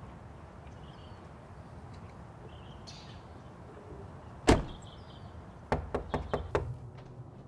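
Car door slammed shut once, hard, about halfway through, followed a second later by a quick run of lighter taps.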